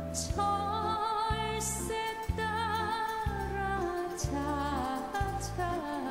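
Background music from a slow song during an instrumental stretch between sung lines. A bass note lands about once a second under a held lead melody with a wide vibrato, and a few faint cymbal-like hisses come through at intervals.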